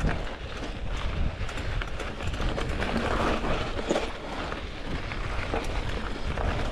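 Mountain bike rolling over loose volcanic gravel and rocks: tyres crunching and the bike rattling and clattering over the rough ground, with a steady low rumble underneath.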